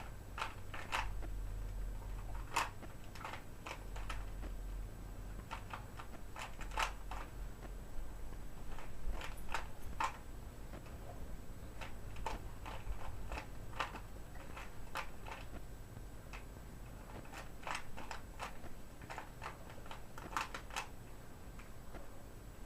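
Rubik's Cube layers being turned by hand: plastic clicks and clacks in irregular quick runs, with short pauses between.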